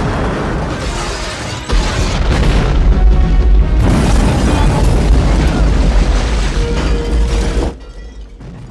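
Movie explosion effects mixed over the film's score: a loud blast about two seconds in, then several seconds of heavy, deep explosion noise that falls away about a second before the end.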